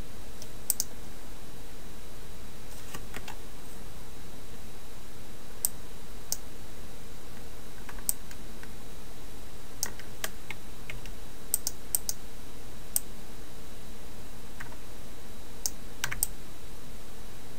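Irregular single clicks of a computer mouse and keyboard keys, a dozen or so spread unevenly, over a steady background hiss.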